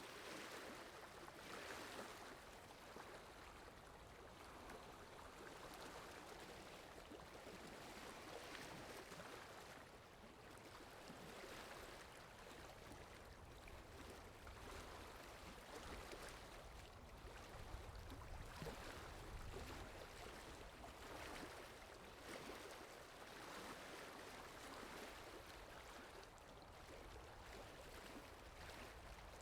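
Faint, steady rainfall, an even hiss that swells gently every few seconds.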